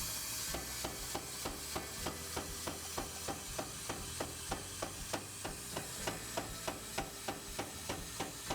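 Hammer blows on a hot steel knife blade being forged, struck in an even rhythm of about three blows a second, over a steady hiss.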